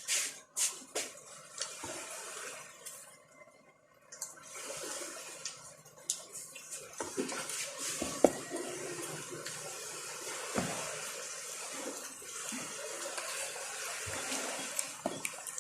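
Water running steadily with a brief break partway through, and scattered light clicks and knocks over it.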